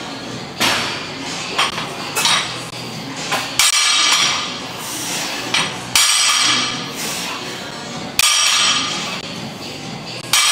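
Loaded barbell with weight plates knocking down onto the gym floor on each deadlift rep, a sharp clank with a short metallic ring about every two seconds.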